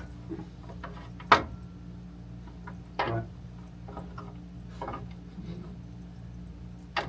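Scattered sharp clicks and knocks of hand tools and loosened parts being handled on a miter saw during blade removal, the loudest about a second in and another about three seconds in, over a low steady hum.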